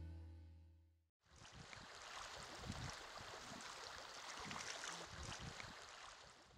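Faint running water of a shallow river, an even rush with small scattered splashes and knocks. It comes in about a second in, after plucked-string music has faded out.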